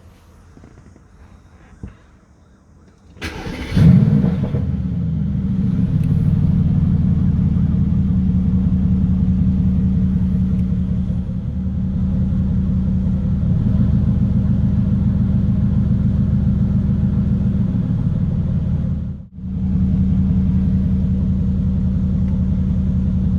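Mercedes-AMG GT S twin-turbo V8 with a custom exhaust and ECU remap starting: about three seconds in, a short crank catches into a loud flare. It then settles into a steady deep idle, with a brief drop in sound a few seconds before the end.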